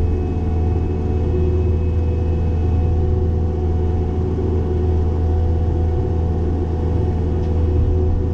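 Cat 262D skid steer's diesel engine running at a steady pitch, driving a Loflin open-front brush cutter: a constant low hum with no change in speed.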